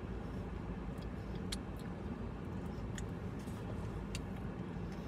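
Steady low hum of a car idling, heard from inside the cabin, with a few faint clicks scattered through it.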